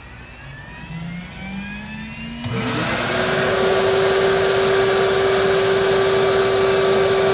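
Desktop CNC spindle spinning up with a faint rising whine, then about two and a half seconds in a dust-extraction vacuum starts with a sudden loud rush and runs on with a steady hum.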